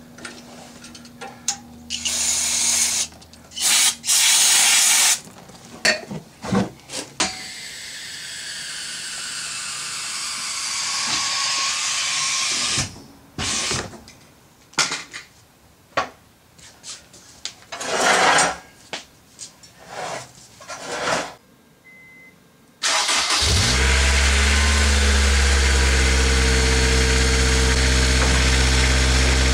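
An aerosol spray can hissing in repeated bursts under the car. Near the end, a Honda S2000's four-cylinder engine starts and settles into a steady idle.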